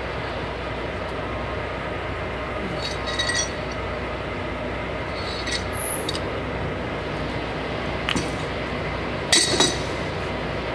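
Steel pipe wrenches clinking together and against the pavement as they are picked up, with four short metallic clinks, the loudest near the end, over a steady background hum.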